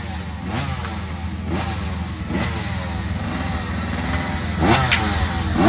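Motocross dirt bike engines revving, the pitch climbing sharply and falling back again and again, about once a second, over a steady low engine drone.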